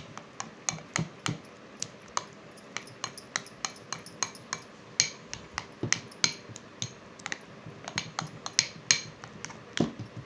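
A spoon clicking and scraping against a glass bowl as thick jalebi batter is beaten, in quick, irregular taps, several a second.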